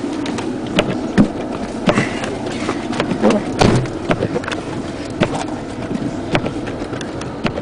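Four-wheel-drive car ploughing through deep snow, heard from inside the cabin: the engine works steadily under load over a constant rush of snow against the car, with frequent irregular knocks and thuds as packed snow strikes the front and underbody.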